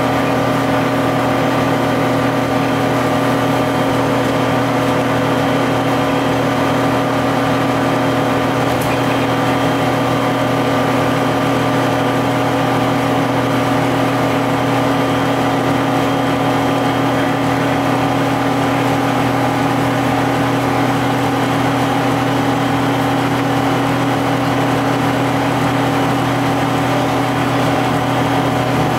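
GM TDH-5303 transit bus's two-stroke Detroit Diesel engine running steadily, its drone holding one pitch with no revving up or down.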